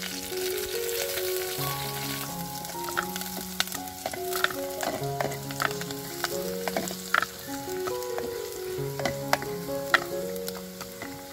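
Coconut oil sizzling as a tempering of garlic, kochchi chillies, rampe and curry leaves fries in a pot. A spoon stirs it, clicking now and then against the pot. The sizzle is strongest in the first two seconds.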